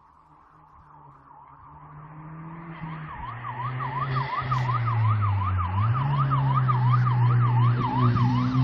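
A car approaching at speed, its engine growing steadily louder, with a yelping siren over it from about three seconds in, rising and falling quickly, two or three times a second. The engine note dips briefly just past halfway, then picks up again.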